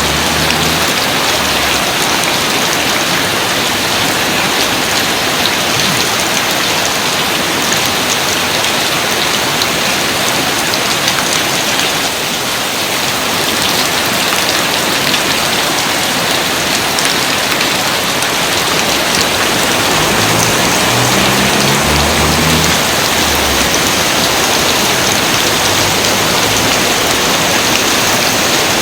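Steady rain falling, a dense, even hiss of many drops that does not let up.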